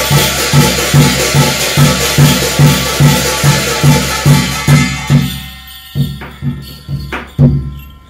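Korean shamanic gut music: a steady drum beat, about two to three strokes a second, under dense metallic jingling of hand cymbals and shaken shaman's bells. The jingling stops about five seconds in, and the drum carries on more softly, fading out near the end.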